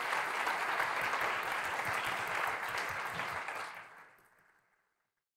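Audience applause, many hands clapping together, fading out near the end.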